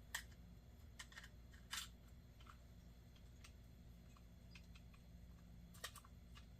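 Faint, scattered small clicks and taps from the parts of an Ambassadeur 5501 C3 baitcasting reel being handled and fitted back together.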